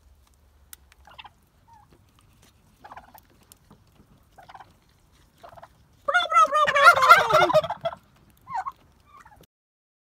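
A turkey gobbling: one loud gobble of about two seconds starting a little past halfway, followed by a couple of short, quieter calls.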